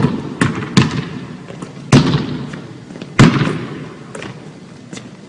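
Basketball bouncing hard on a hardwood gym floor, with each bounce echoing through the large gym: a couple of quicker dribbles near the start, the loudest bounces about two and three seconds in, then a few fainter ones.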